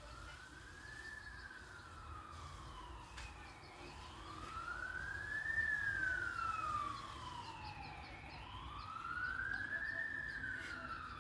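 A siren wailing slowly up and down, each rise and fall taking about four to five seconds, with a fainter, higher siren wailing out of step above it; it grows louder toward the middle.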